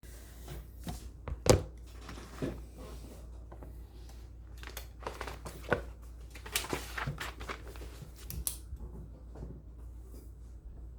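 Papers and small objects being handled on a desk: irregular rustles and clicks, the sharpest about one and a half seconds in, dying down near the end.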